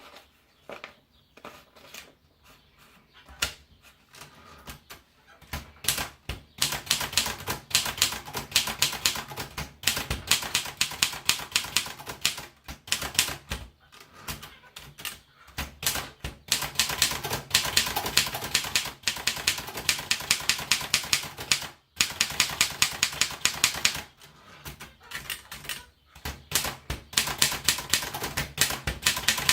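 Princess 200 typewriter being typed on. A few scattered key strikes come first, then from about six seconds in there are runs of fast, even keystrokes broken by short pauses.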